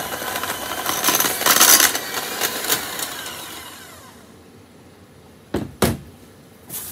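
KitchenAid electric hand mixer running, its beaters whipping thick tallow balm in a glass measuring cup; about three seconds in it is switched off and the motor winds down with a falling whine. Near the end come two sharp knocks as the mixer is laid down on the steel worktop.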